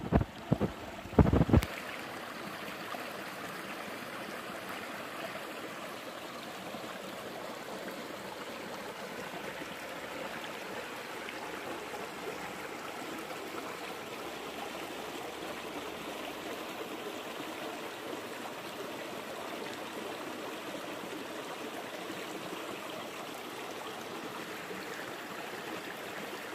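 A mountain stream running, a steady rush of water with no change throughout. A few sharp knocks sound in the first second or two.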